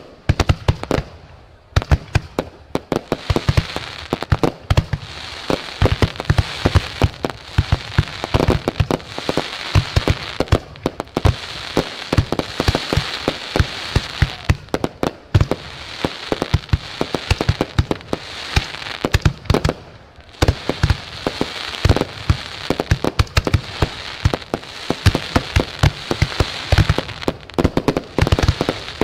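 Aerial fireworks bursting in a dense, rapid barrage of bangs over continuous crackling. The barrage thins briefly near the start and again about twenty seconds in.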